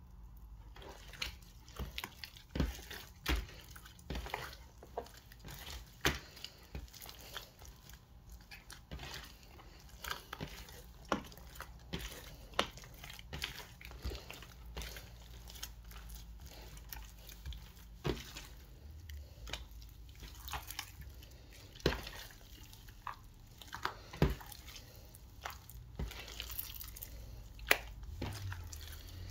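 Glossy clear slime full of tiny beads being kneaded and pressed by hand: wet, sticky squishing with irregular sharp clicks and pops, several a second.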